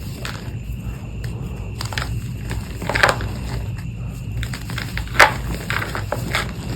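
Reformed chalk being crushed and crumbled by hand, giving crisp crunches and snaps. The sharpest come about three seconds in and about five seconds in, over a steady low hum.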